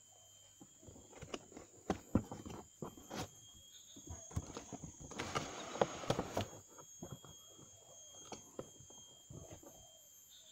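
Packaging of a toy RC car being opened and handled: scattered clicks and knocks, with a longer burst of rustling about five to six and a half seconds in. Insects chirr steadily and high in the background.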